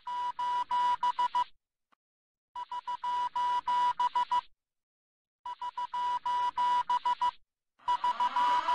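An electronic trilling ring in four bursts of about two seconds each, with short silent gaps between them. The last burst blurs into rising, sweeping tones.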